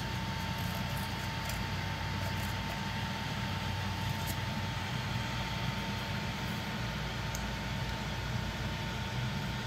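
Small electric motors of a laser cutter rig running with a steady hum and a constant mid-pitched whine. A few faint clicks sound as a cut plywood tag is pressed out of the sheet.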